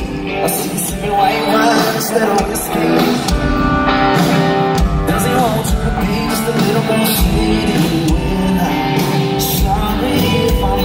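Live country band playing a song: a man sings lead into a microphone over electric guitars, bass and drums.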